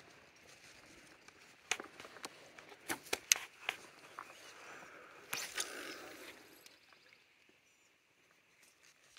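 A person moving on a brushy bank: a string of sharp snaps and clicks about two to four seconds in, then a short rustle, then quiet.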